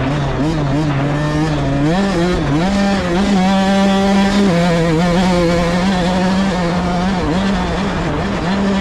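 Off-road vehicle engine running hard while being ridden through sand, its pitch rising and dipping several times with throttle changes.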